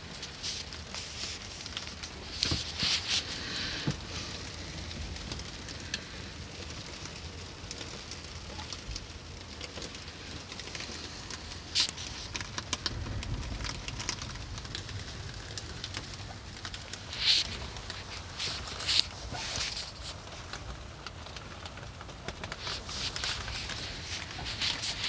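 Sleet and rain pattering on a small boat's cabin top, with scattered sharp ticks and a few clusters of louder, high-pitched pattering. A low rumble of gusting wind swells about halfway through.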